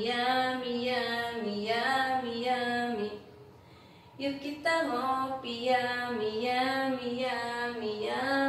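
A woman singing alone, unaccompanied, in drawn-out held notes. She breaks off for about a second roughly three seconds in, then carries on.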